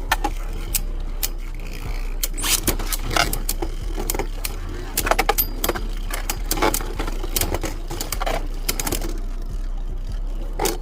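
Beyblade Burst Quadstrike spinning tops clashing in a stadium: a long run of sharp, irregular clacks and knocks over a steady low hum.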